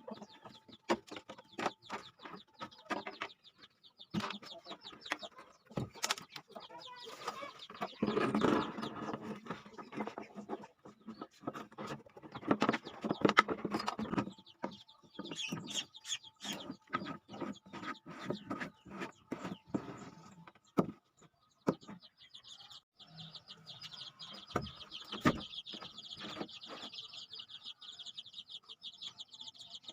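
Chickens clucking among many sharp taps and knocks. About three-quarters of the way through, a steady high buzz sets in and holds.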